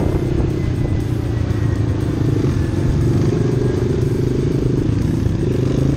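Honda CRF230 trail bike's single-cylinder four-stroke engine running steadily, a low continuous engine note without clear revving.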